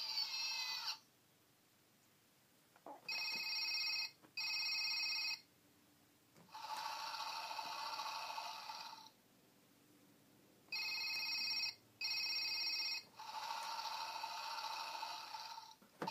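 Small speaker of a children's Play-a-Sound book playing a telephone-ring sound effect, two short rings, followed by a longer electronic sound effect, with pauses between button presses. The rings and the longer sound play twice.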